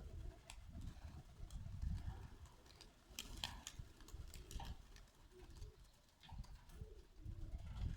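Birmingham roller pigeons in a loft: faint low cooing with scattered sharp clicks and taps, over a steady low rumble.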